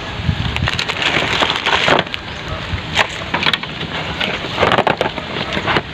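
Hard plastic clicks, knocks and rattles from a cordless pressure-washer gun, its batteries and fittings being handled in their plastic carry case.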